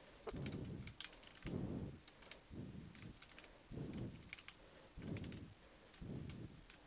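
Computer keyboard typing: a faint run of quick key clicks as a line of code is typed, with several dull low thumps about once a second among them.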